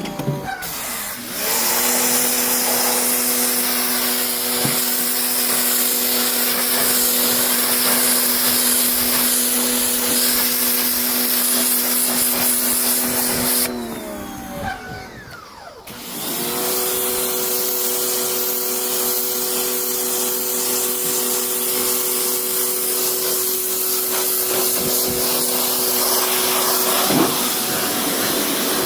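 Electric pressure washer running, its motor humming steadily under the hiss of the spray. About halfway through the motor winds down with a falling pitch as the trigger is let go, then starts up again about two seconds later.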